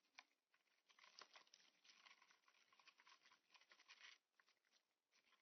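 Very faint, irregular ticking and scratching of an insect moving about, with no wing buzz; the small clicks bunch up from about a second in and die away after about four seconds.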